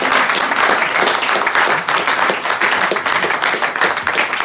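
Audience applauding: many hands clapping in a dense, continuous patter.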